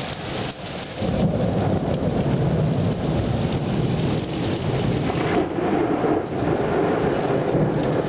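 Heavy rain pouring steadily, with thunder that breaks into a long low rumble about a second in and keeps rolling.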